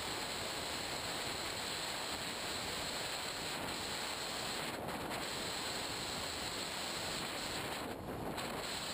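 Steady, even hiss of rushing noise with no motor tone in it.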